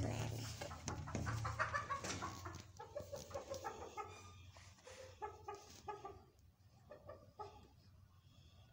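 Ayam Cemani chickens clucking in a quick string of short calls. The calls are loudest at first and thin out to a few faint clucks after about six seconds.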